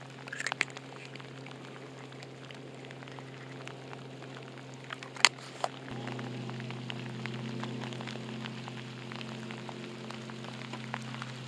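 Steady rain falling, a constant hiss full of small drop taps, over a low steady hum. A few sharp clicks from handling the bait jar and hook stand out, the loudest about five seconds in.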